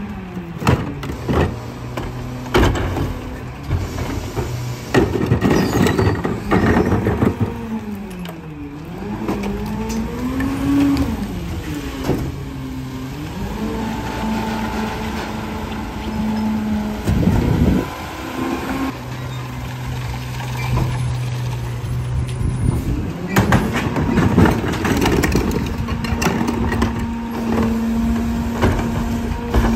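A Mack MRU garbage truck's diesel engine revving up and down as the PowerTrak rear-loader packer cycles, holding a raised, steady pitch while the blade runs. Bangs and clatter of wheeled carts being tipped against the hopper and trash dropping in.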